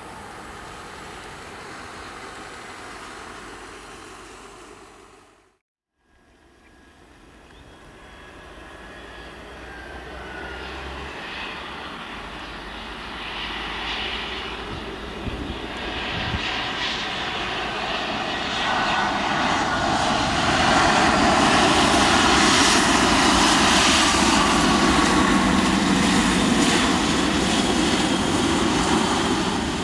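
Twin-engine jet airliner landing and rolling out along the runway. Its engine noise builds steadily over about ten seconds and is loudest for the last ten, with a faint whine gliding through it. At the start a more distant jet noise fades out to a moment of silence at an edit, about six seconds in.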